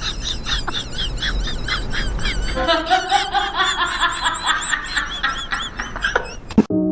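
Birds chirping rapidly, several short high calls a second, with a lower, drawn-out call joining about three seconds in. It cuts off abruptly near the end.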